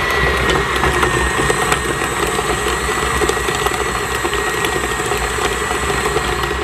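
Electric stand mixer motor running at a steady speed with a constant whine, its flat paddle beater creaming butter in a stainless steel bowl.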